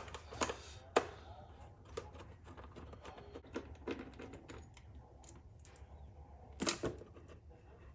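Scattered light clicks and knocks of hands working on motorcycle parts during a teardown, with a sharper knock about a second in and two louder ones near the end.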